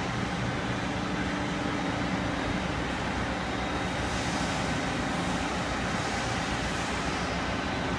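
Steady hum of a machine shop with a powered-up CNC lathe: low droning tones under an even mechanical noise, with a faint steady high whine. Soft hiss swells up a few times near the middle.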